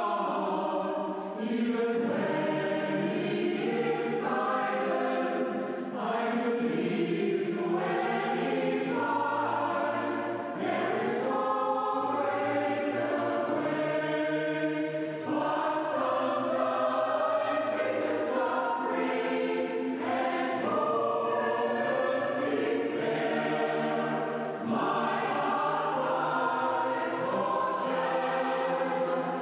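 Mixed choir singing a slow choral piece in a church, sustained chords in several voices with short breaks between phrases, the sound carried by the church's reverberant acoustic.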